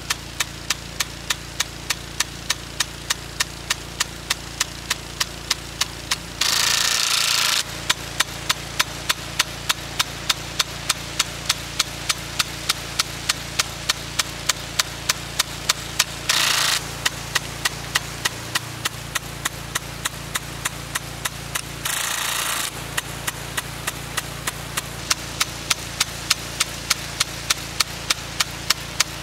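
SIME Ambo 1.5-inch part-circle impact rain gun running: its swinging impact arm strikes the jet in a steady rhythm of sharp clacks, about three a second, over the hiss of the water stream. Three times a louder rush of spray noise, about a second long, swells over it.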